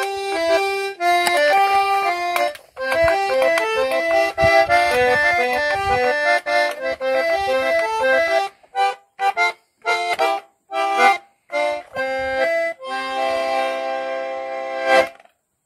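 Accordion playing a chamamé tune: a running melody over bass notes, then short detached chords with pauses between them, ending on a long held chord that stops suddenly.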